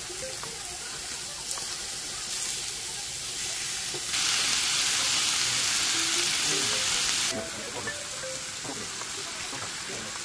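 Food sizzling in a frying pan, a steady hiss throughout. About four seconds in, a louder hiss starts abruptly, lasts about three seconds, then cuts off.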